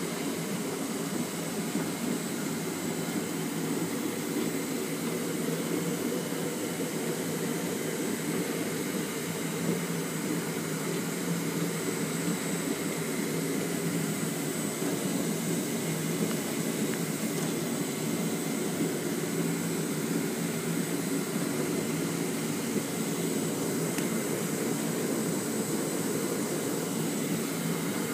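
Rotary packaging machine running: a steady mechanical drone from the indexing turret and its drive, with a faint high whine.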